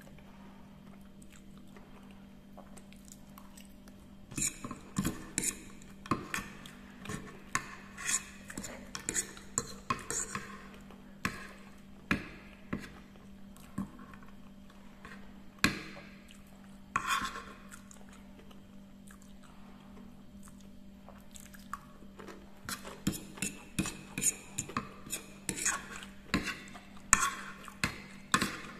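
A metal spoon and fork clink and scrape against a ceramic plate, gathering up the remaining fried noodles. The sharp clinks come in bunches, with quieter gaps at the start and again a little past the middle, over a steady low hum.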